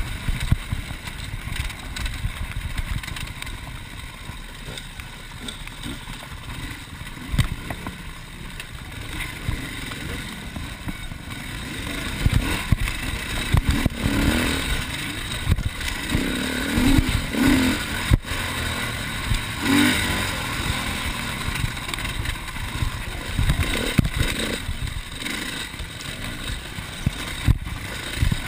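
Enduro motorcycle engine running and revving up and down as it is ridden over rough forest trail, strongest through the middle stretch. Low rumble from wind on the microphone, with several sharp knocks and rattles from the bumps.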